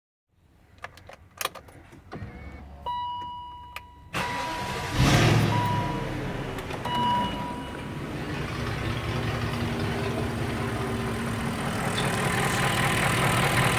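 A few clicks and a short electronic tone, then a BMW X5 engine starts about four seconds in and settles into a steady idle. The vehicle has an exhaust leak that the owner is trying to locate.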